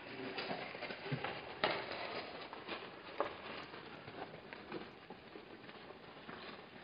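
Wildebeest moving about right at the camera: hooves scuffing the gravelly sand and the animal's head and mane brushing the camera, an irregular run of scrapes, crackles and knocks, the two loudest about a second and a half and three seconds in.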